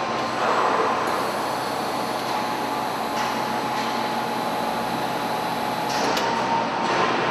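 Forklift truck running as it drives with a load: a steady mechanical noise with a faint steady whine, and a few brief knocks near the start and near the end.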